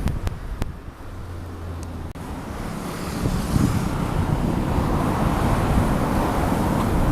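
Honda CB400SF inline-four engine running through a WR'S slip-on silencer, a few clicks near the start, then the exhaust sound building from about three seconds in and staying loud.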